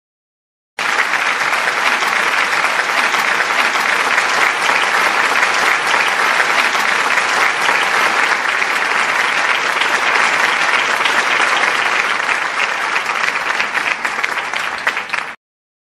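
Applause: steady clapping of many hands that cuts in abruptly about a second in and cuts off just as abruptly near the end.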